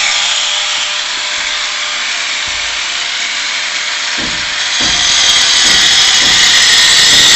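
Handheld angle grinder running and cutting a groove into masonry wall, a steady high whine with a gritty cutting noise that grows louder about five seconds in.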